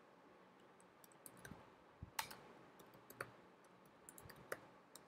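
Faint computer keyboard keystrokes as code is typed: scattered single key clicks, then a quick run of clicks near the end.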